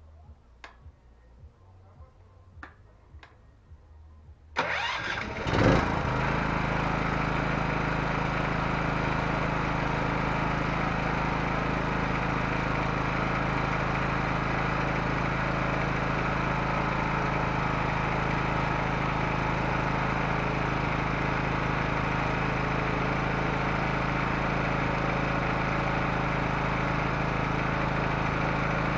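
A few light clicks, then the Master GB 3900 E petrol generator's single-cylinder four-stroke engine starts about four and a half seconds in, surges briefly as it catches and settles into a steady run.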